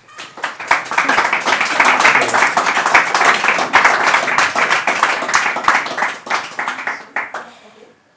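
Applause from a small group of people clapping, building up within the first second and dying away near the end.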